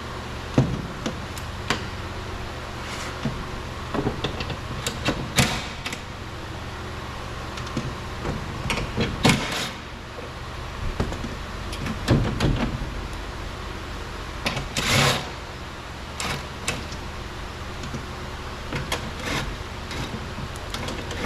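Scattered clicks, knocks and scrapes of hand tools on metal inside a car door as the two 10 mm bolts holding the door glass are undone, over a steady low hum.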